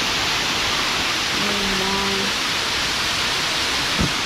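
Man-made waterfall pouring over rock into a pool: a steady, even rushing of falling water. A short held tone sounds over it about a second and a half in, and a brief low bump comes just before the end.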